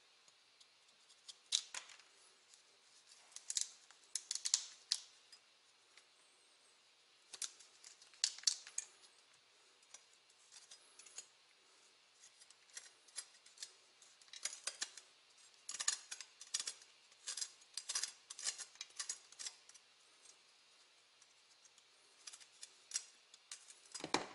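Kitchen knife scraping the seeds and core out of hard raw quince halves: short scratchy scrapes and clicks in irregular clusters, a few at a time with pauses between.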